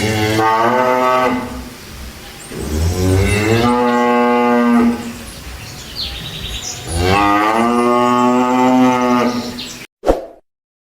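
Cattle mooing: three long, loud moos about three seconds apart. The sound cuts off suddenly near the end, followed by one short sharp sound.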